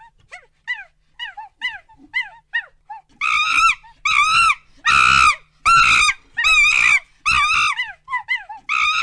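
An animal calling: quick short falling chirps, then about three seconds in, louder, longer pitched calls repeated about every three-quarters of a second.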